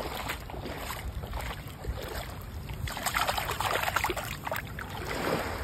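Shallow seawater sloshing and splashing as a hand rinses a small stone in it, with a busier burst of splashing about three seconds in.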